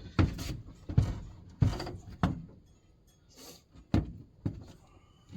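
A series of about seven irregular thumps and knocks, heaviest in the first two seconds, with a short boomy ring inside an enclosed trailer, as gear is shifted around on the floor.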